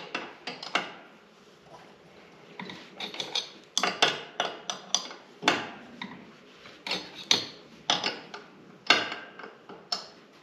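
A wrench clicking and clinking against the steel mower deck while the belt idler's bolt is tightened to set the new deck belt's tension. The metallic clicks come in irregular short clusters.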